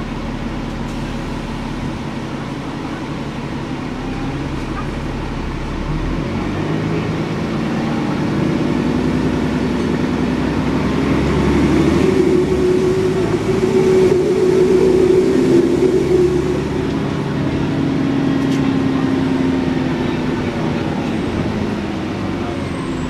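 Cummins ISBe diesel engine of an Alexander Dennis Enviro 400 double-decker bus accelerating: the engine note climbs in pitch and loudness over several seconds, drops back about two-thirds of the way in, then pulls again at a lower note and eases off near the end.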